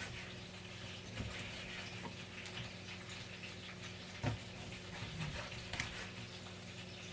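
Lemon being squeezed by hand into a small bowl of soy-vinegar dipping sauce: a few soft clicks and taps over a faint steady hiss.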